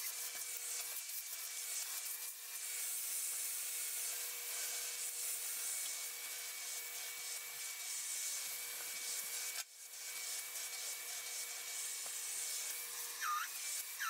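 Stick vacuum running steadily with a whine and hiss, its nozzle rubbing over pillow fabric to suck skin cells and debris out of the pillows. The sound cuts out for a moment about two-thirds through.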